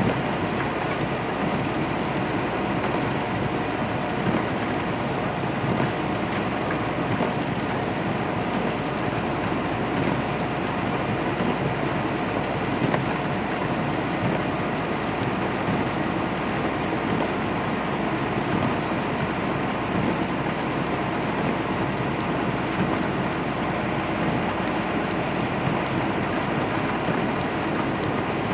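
Steady drone of a big-rig truck's engine and tyres hissing on rain-wet pavement, heard inside the cab.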